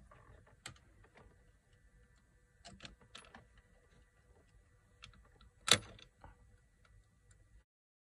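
Light, scattered clicks and taps from a small screwdriver and plastic steering-wheel trim being handled, with one louder, sharper click about six seconds in, over a faint steady hum.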